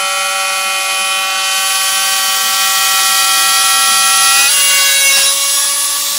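Dremel rotary tool, mounted as a CNC router's spindle, whining steadily as the bit cuts into a white sheet. About four and a half seconds in, its pitch dips and shifts briefly, then settles again.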